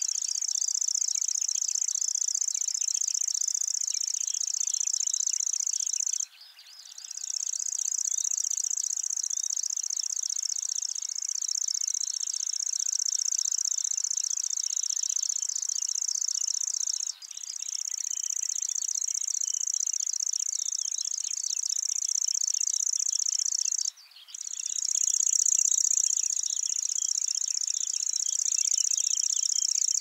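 Lanceolated warbler singing its reeling song: a long, high, rapid continuous trill that breaks off briefly three times and starts again each time.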